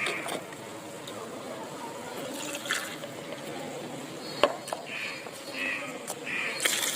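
Water being poured into a container, a soft splashing trickle, with one sharp click a little past halfway.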